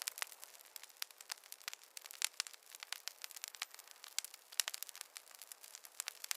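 Wood fire in a fireplace crackling: irregular sharp pops and snaps, several a second, over a faint hiss.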